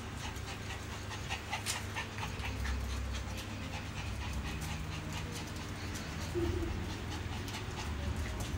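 Dog panting, with scattered faint clicks and a brief short whimper-like sound about six and a half seconds in.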